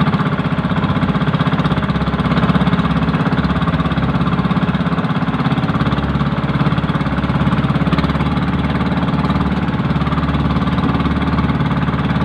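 Outrigger fishing boat's engine running steadily under way, a fast, even beat that holds the same speed throughout.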